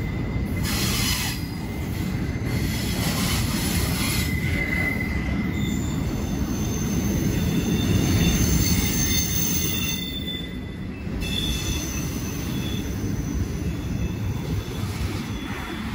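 Freight train rolling past with a steady low rumble, its wheels squealing against the rails in several high tones from about five seconds in, briefly dropping out around ten seconds.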